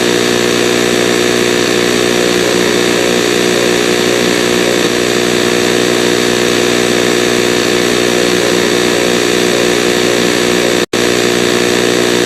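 A loud, steady buzzing drone over a hiss, with no change in pitch, cutting out for an instant about eleven seconds in.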